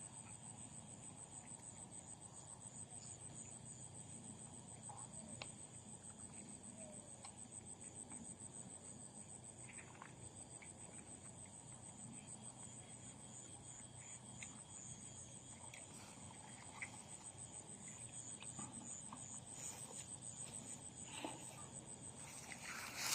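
Insects trilling steadily in a high, fast-pulsing chorus, with faint scattered clicks and a low hum underneath; a brief rustle near the end.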